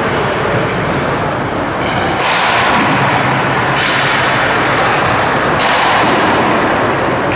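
Three sharp bangs about 2, 4 and 5.5 seconds in, each ringing out through the rink, over a steady loud rushing noise.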